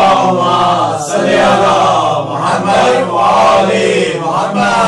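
Men's voices chanting a devotional verse in long, loud melodic phrases.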